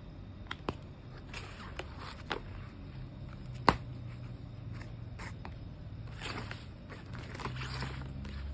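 Books being handled by hand: pages flipping and paper rustling, with scattered soft clicks and one sharp tap about three and a half seconds in.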